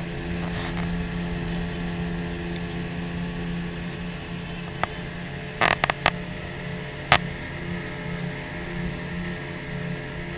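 Outboard motor running at a steady pitch, driving a small aluminium boat. A few sharp knocks come about six to seven seconds in.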